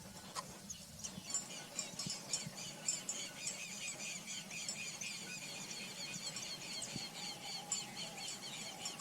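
Dawn chorus: many birds calling at once, a dense, overlapping stream of short high chirps and trills.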